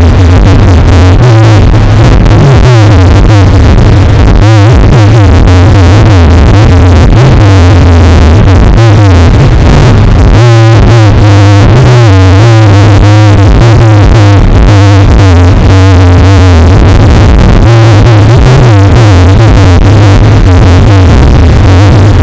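Loud, heavily bass-boosted electronic music with a synthesizer lead, distorted and clipping near full volume.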